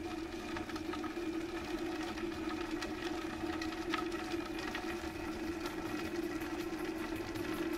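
Vitamix blender motor running steadily at variable speed 3, its blades chopping a quartered onion in the container.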